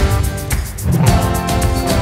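Background music with a steady beat and plucked strings.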